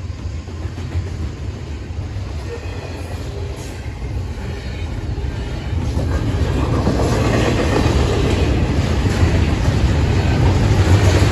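Freight train's container-carrying well cars rolling past at speed, a steady wheel-on-rail noise that grows louder about six seconds in.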